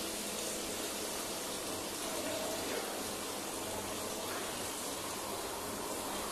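Tap water running steadily into a washbasin while cloths are rinsed under it.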